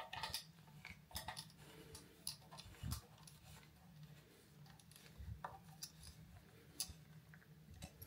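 Faint, irregular clicks and scrapes of a small screwdriver turning a mounting screw into a wall switch's plastic back plate.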